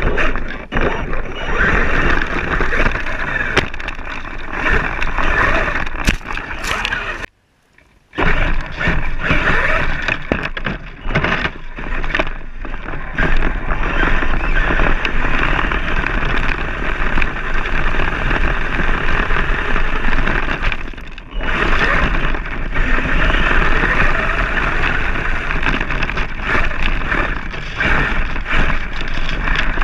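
Axial Yeti RC rock racer driving over rough ground, heard from a camera mounted on the truck: a continuous rattling rumble of tyres and chassis with frequent knocks and jolts. The sound cuts out briefly about seven seconds in.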